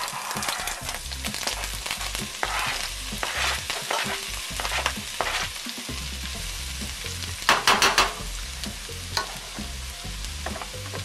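Sliced onions and mushrooms sizzling as they land in a hot nonstick frying pan, with scraping and stirring noises as they are spread around. A quick run of about four loud knocks comes a little past halfway.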